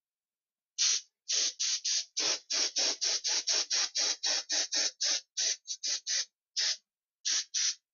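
Games Workshop spray gun spraying primer in short, even hisses, about three a second, then a few more spaced-out ones near the end.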